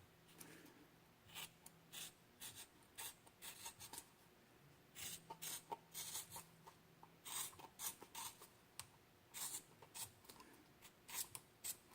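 Scissors cutting through a rubber CV axle boot to trim it to a smaller size: a series of faint, short snips and rasps at irregular intervals.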